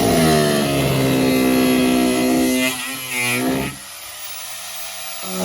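A small motor revving up and running steadily, then easing off about two-thirds of the way through and picking up again near the end.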